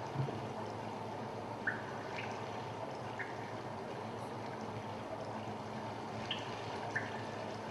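Water dripping: single drops falling at irregular intervals, about one a second or less, over a steady trickling hiss.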